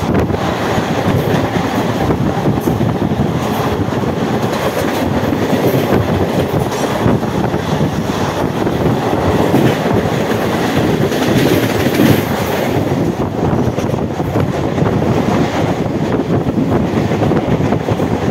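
An oncoming electric locomotive and its passenger coaches passing close on the next track, heard from a moving train. A loud, steady rush of wheels and air with fast clickety-clack over the rail joints.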